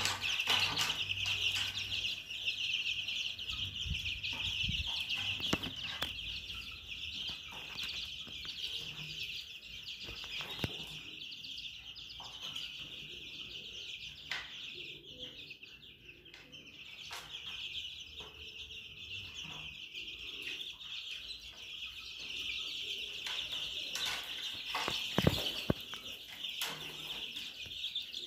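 A flock of two-week-old baladi chicks peeping together in a continuous high-pitched chorus, with a few scattered sharp knocks, the loudest near the end.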